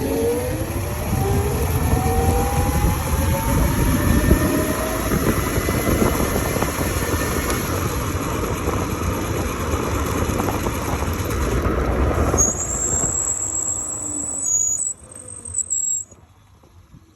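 Modified Razor RSF650 electric mini moto being ridden: its motor whine climbs in pitch as it speeds up, over steady wind and road rumble. A high whine comes in near the end before the noise drops away suddenly.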